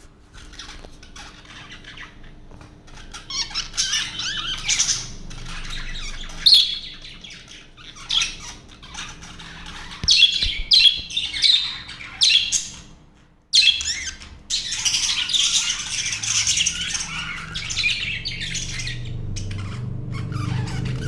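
A flock of budgerigars chattering, with overlapping chirps and loud squawks in irregular bursts and a brief lull about two-thirds of the way through.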